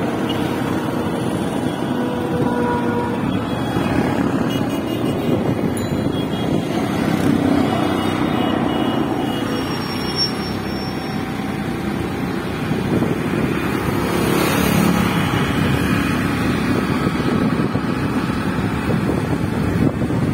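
Riding on a motorcycle through city traffic: the motorcycle's engine running under steady, dense road and traffic noise.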